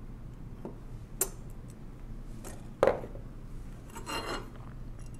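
Small metal clicks of a screwdriver working a screw out of the rail of a 1920s Monroe mechanical calculator. A sharper knock about three seconds in is followed a second later by a short metallic jingle, the screwdriver and screw being set down on the table.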